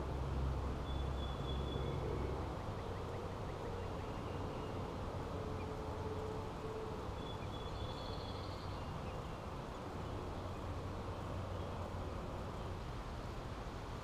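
Outdoor background: a steady low rumble, stronger in the first couple of seconds, with faint, brief bird chirps about a second in and again around eight seconds.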